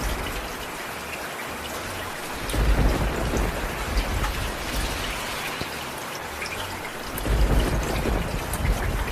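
Steady rain with scattered drops pattering on a surface. Two low rumbles of thunder swell up, about two and a half seconds in and again about seven seconds in.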